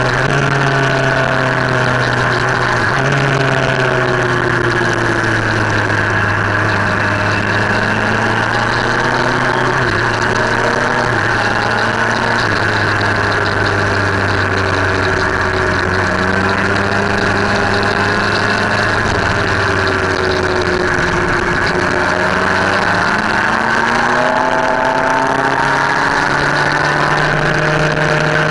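Motorcycle engine running on the road, heard from onboard, its pitch stepping down and rising again several times with throttle and gear changes, over steady wind and road noise.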